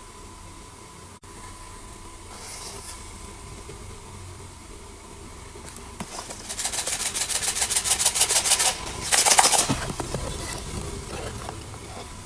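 Plastic blind-bag packaging being rubbed and crinkled: a quick run of scratchy strokes, about seven a second, for about two seconds past the middle, then a louder crinkling burst.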